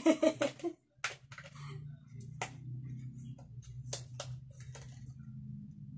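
Fingernails picking at the tape on a small cardboard box and handling it, giving a few sharp, irregular clicks and ticks over a faint steady low hum.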